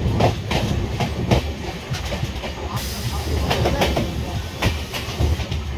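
Passenger express train running, heard from aboard a coach: a steady rumble with the wheels' clickety-clack of irregular clicks and knocks over the rail joints.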